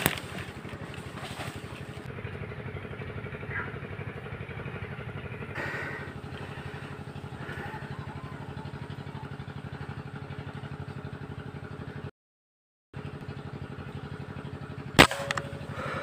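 A steady low small-engine drone with a fast even pulse, cutting out for under a second just after the twelve-second mark. About three seconds later comes a single sharp crack, an air rifle shot at a heron.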